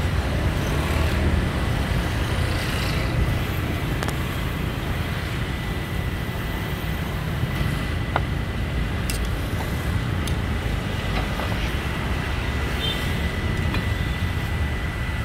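Steady low rumble of street background noise, like passing traffic, with a thin steady high whine and a few scattered faint clicks.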